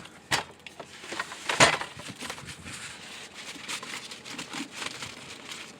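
Rustling and crinkling of things being handled and moved about in a search for a towel, with a sharp knock just after the start and a louder one about a second and a half in, then lighter scattered clicks and rustles.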